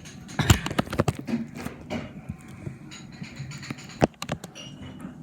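A quick run of knocks and clicks, densest about half a second in, then scattered single taps with a sharper knock near the end, over a low background hum.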